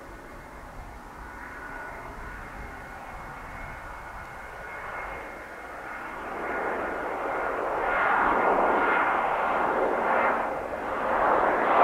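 Boeing 737-500's twin CFM56-3 turbofan engines on landing approach: jet noise with a steady high whine, growing steadily louder as the airliner nears. It swells and wavers over the last few seconds.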